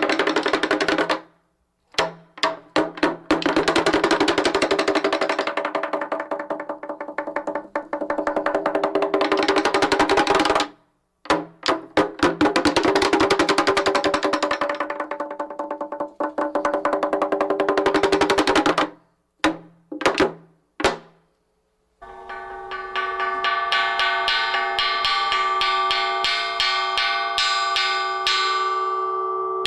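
A Buddhist temple wooden fish (mogeo) beaten in long, fast rolls with short pauses, ending in a few single strokes. About 22 seconds in, a struck bronze cloud-shaped gong (unpan) takes over, ringing with rapid strokes.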